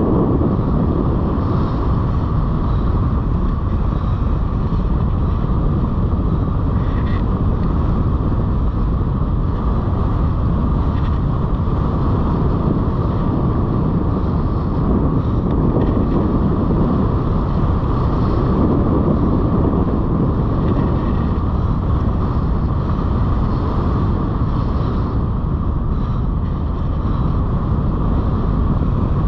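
Steady rush of wind over the microphone of a camera mounted on a hang glider in flight.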